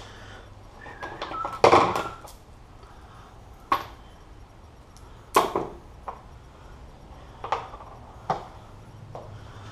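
Metal hand tools clinking and clattering on a cluttered workbench as they are picked up and set down: a run of rattling about two seconds in, then several single sharp clinks a second or two apart.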